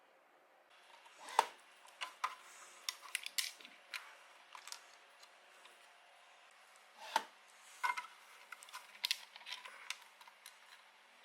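Small hard plastic parts clicking and tapping as they are handled, with two louder knocks, one about a second and a half in and one about seven seconds in.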